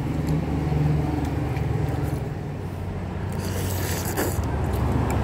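Thick lomi egg noodles being slurped, with a noisy slurp about three and a half seconds in. A steady low hum runs underneath.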